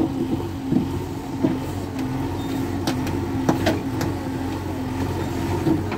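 JCB 3DX backhoe loader's diesel engine running steadily while it works its backhoe arm, with several sharp knocks.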